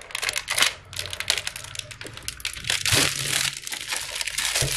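Clear plastic wrapping film crackling and crinkling as it is slit with a utility knife and pulled off by hand, loudest about three seconds in.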